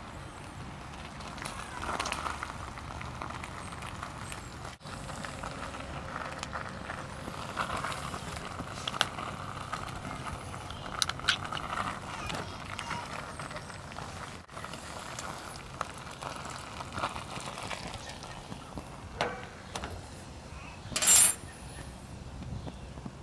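Ration tin heating on a folding metal stove over a burning solid-fuel tablet: a steady hiss with scattered small clicks. About two seconds before the end there is one loud, brief metallic clatter as the tin is lifted off the stove.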